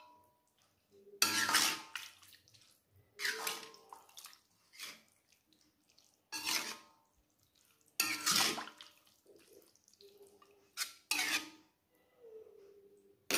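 Spatula scraping and knocking against a wok while stirring shredded chicken in a wet sauce: about seven separate strokes, a second or two apart, with a faint metallic ring.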